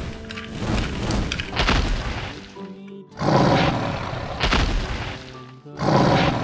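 Cartoon background music with two sudden heavy booms, the first about three seconds in and the second near the end.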